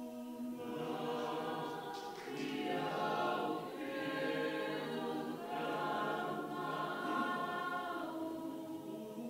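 A church choir or congregation singing a hymn in Tongan, in long held chords, phrase after phrase with short breaths between them.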